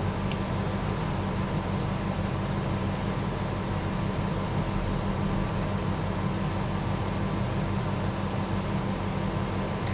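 Steady machine hum with hiss, level and unchanging, with two faint small clicks in the first few seconds.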